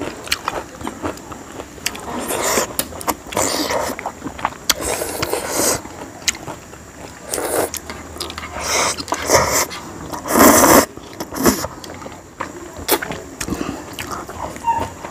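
Close-up eating sounds of instant noodles and momo dumplings: noodles being slurped, wet chewing and lip smacks, with small chopstick clicks. The loudest slurp comes about ten seconds in.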